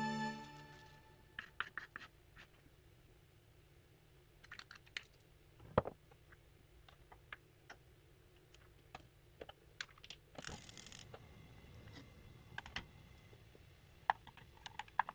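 Faint food-handling sounds: a plastic food-prep glove crinkling and raw bacon strips being laid into a stainless saucepan of vegetables, with scattered small clicks and taps and a short rustle about ten seconds in. Near the end a wooden spatula taps and scrapes among the ingredients in the pan.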